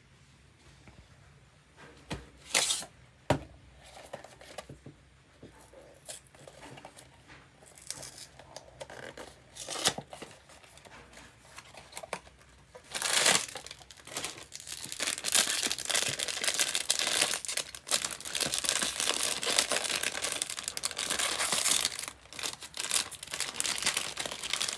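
A cardboard blind box being handled and opened, with scattered rustles and a few sharp clicks. About halfway through, a foil bag starts to crinkle and tear continuously as it is pulled open by hand.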